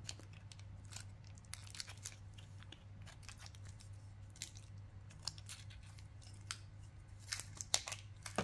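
Faint clicks and small crinkles of hands handling a face-paint stick in its clear plastic wrap, twisting and working at its cap, with a cluster of louder clicks near the end. A low steady hum runs underneath.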